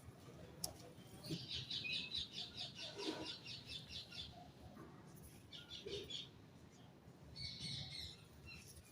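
Small birds chirping in quick repeated trills, three runs of high rapid chirps, over faint crunching and crackling of gritty red sand crumbles with a sharp click or two.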